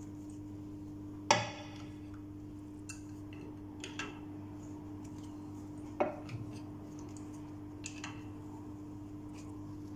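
Metal clinks of an adjustable spanner on a screw-extractor tool as it is turned to back a broken angle-valve thread out of the wall fitting: a few separate clinks, the loudest about a second in and others near four, six and eight seconds, over a steady low hum. The broken piece is loosening and unscrewing.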